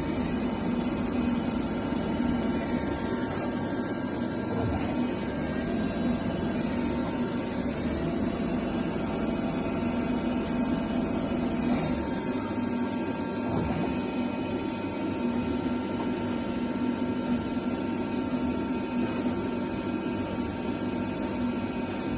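Okuma ES-L8ii-M CNC lathe running: a steady machine hum with several whining tones, some sliding up and down in pitch.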